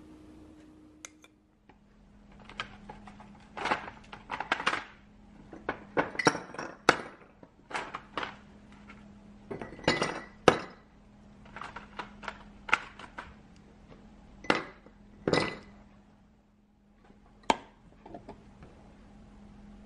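Ice cubes dropped by hand one at a time into an empty glass jar, clinking against the glass and each other in a long string of sharp clinks. One more single click comes near the end.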